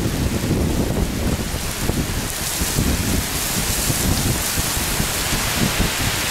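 Heavy rain pouring down in a thunderstorm: a steady hiss of rain, with an uneven low rumble underneath.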